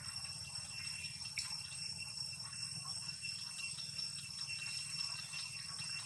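Steady high-pitched insect drone over a low hum, with a faint tick about a second and a half in.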